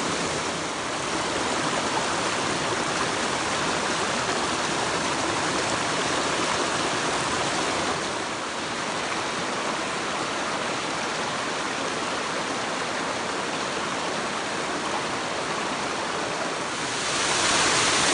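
Mountain stream water rushing steadily, growing a little louder near the end.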